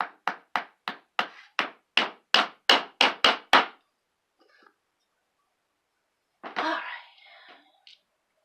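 Hammer tapping tiny nails into the thin back panel of a flat-pack shelf: about a dozen quick strikes, roughly three a second, getting louder, then stopping about three and a half seconds in. A brief muffled, hazy sound follows about six and a half seconds in.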